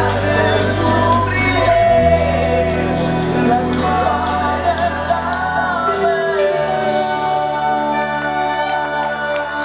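Band playing a slow song with a lead vocal: held chords and a sung melody over a bass note that shifts about every four seconds, the level starting to sink near the end.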